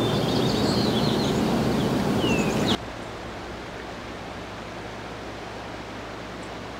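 Steady rushing outdoor ambience with a few short bird chirps in the first two seconds or so. A little under three seconds in, it cuts suddenly to a quieter steady hiss.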